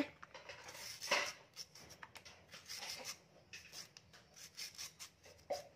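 Raw ginger root being shaved into thin slices on a hand slicer, a fairly quiet run of short, irregular scraping strokes.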